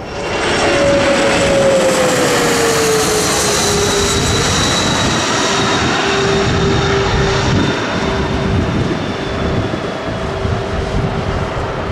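Twin-engine regional jet with rear-mounted engines passing low overhead on landing approach: loud jet engine noise with a whining tone that drops in pitch over the first few seconds as it goes by, then holds steady.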